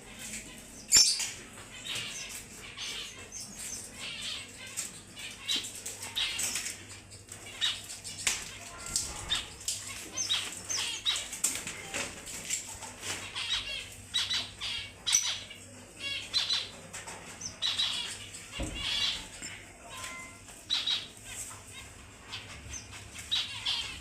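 Pet birds calling: many short squawks and chirps in quick succession.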